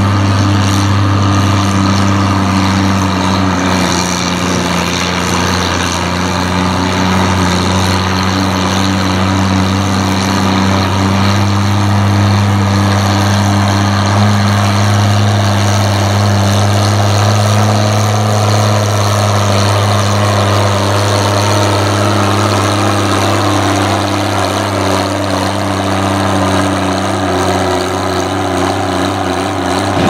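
Oliver 880 farm tractor's engine running steadily under load, pulling a weight-transfer sled down the track, its pitch holding nearly level throughout.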